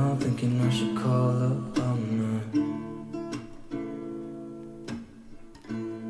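Background music: a song's instrumental passage with strummed guitar.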